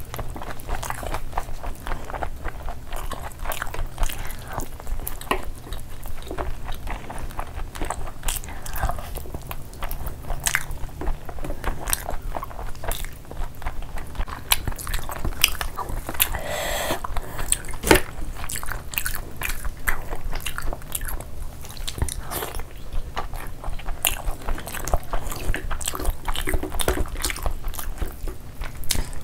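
Close-miked chewing, biting and lip-smacking as two people eat chicken and curry-soaked rice by hand, with frequent sharp mouth clicks and wet sounds of fingers mixing rice and curry.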